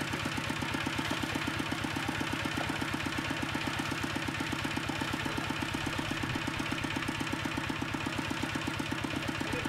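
An engine idling steadily with a rapid, even beat.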